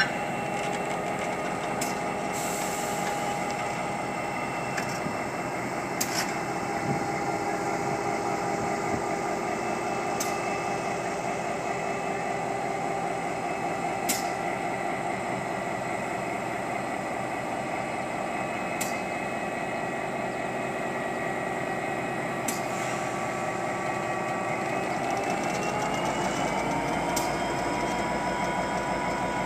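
Diesel locomotive rolling slowly through a crossing, its engine running steadily, with a faint click every few seconds. Near the end the engine's pitch rises as it throttles up.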